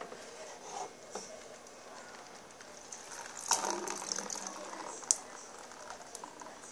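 Handling noises around a plastic bin: rustling and knocks, with a burst of clattering about three and a half seconds in and a single sharp click about five seconds in.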